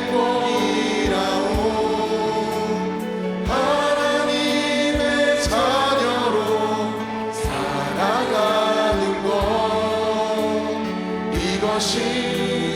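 Slow Korean gospel worship song sung by a group of voices with instrumental accompaniment and a steady beat, the singers holding long drawn-out notes at the end of the chorus.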